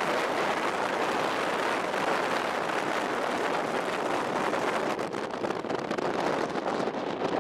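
Steady rushing noise of storm wind and vehicle road noise through an open car window, turning crackly and uneven about five seconds in.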